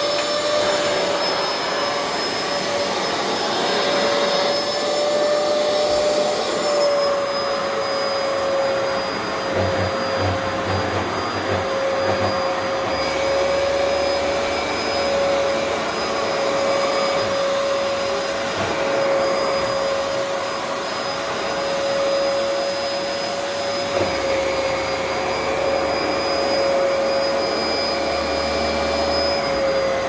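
Vax Platinum Power Max upright carpet washer's motor running steadily, with a constant whine over a rushing suction noise.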